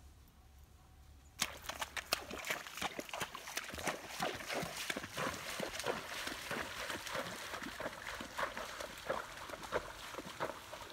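A horse's hooves splashing through shallow water as it is ridden, a dense run of irregular splashes that starts suddenly about a second and a half in.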